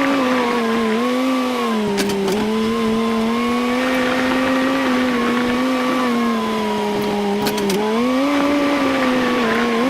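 A vehicle engine running steadily while it works, its pitch rising and falling with the throttle. Two short knocks come through, one about two seconds in and another past the middle.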